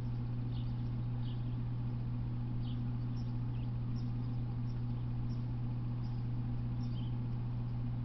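Steady low hum with short, high chirps scattered through it about once a second; no train is passing.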